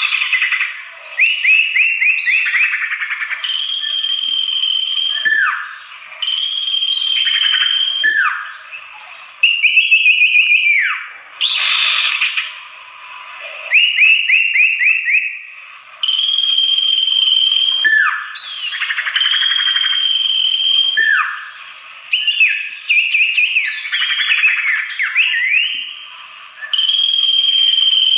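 Common iora (sirtu) calling agitatedly in repeated phrases: long steady whistles, fast runs of short notes and downward-sliding whistles. This is the excited call used as a lure to draw in wild sirtu.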